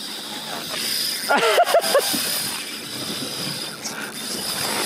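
Spinning reel's drag giving line with a steady high whine as a hooked tuna runs, over wind and water noise. A short grunting laugh about a second and a half in.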